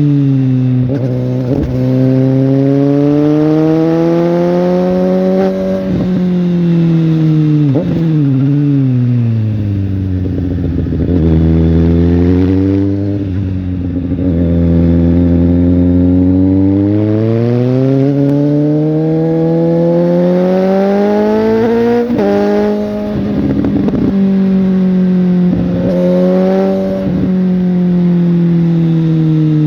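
Suzuki GSX-S750's inline-four engine and exhaust under way. The revs climb steadily and drop abruptly twice, as on upshifts, then fall away into a long low-rev stretch before climbing again.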